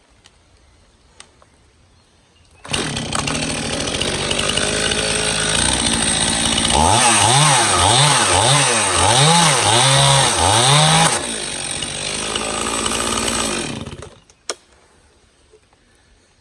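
Stihl MS291 two-stroke chainsaw, coming in suddenly about three seconds in and running loud and hard, as in crosscutting a hickory block. Midway its engine pitch rises and falls several times in a row, then it evens out and the engine stops near the end, followed by a single click.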